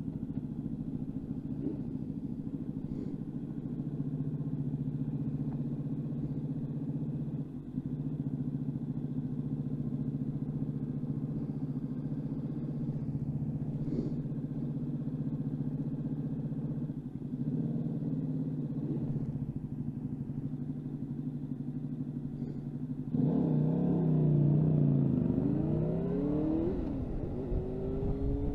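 Suzuki GSX-R motorcycle engine idling steadily while stopped. About three-quarters of the way through it gets louder and revs up as the bike pulls away, the pitch rising and dropping with the gear changes.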